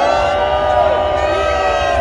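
Large crowd cheering and shouting, many voices overlapping in rising and falling calls, over a low rumble.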